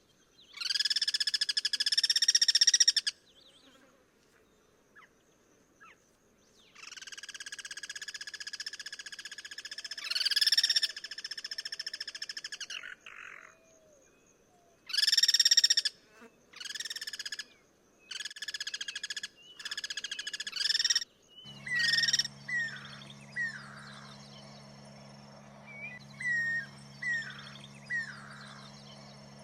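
Guira cuckoos calling back and forth: loud, raspy, drawn-out calls, then a string of short notes. About three quarters of the way in, these give way to quieter chirps over a steady low hum.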